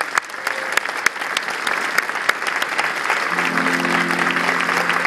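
Audience applauding, many hands clapping at once. About three seconds in, a low held tone sounds beneath the clapping.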